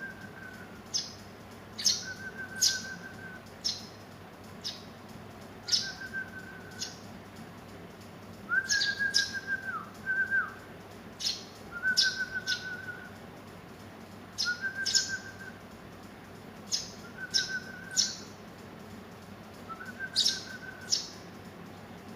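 Eurasian tree sparrows chirping repeatedly: short, sharp high chirps every second or two, many followed by a brief buzzy trill lower down.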